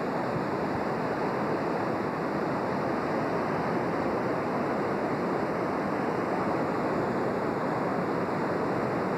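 Floodwater rushing steadily, a constant broad rush with no breaks.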